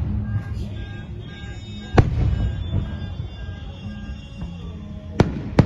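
Aerial fireworks exploding: a sharp bang about two seconds in and two more in quick succession near the end, with rumbling and crackle between them. Music plays underneath.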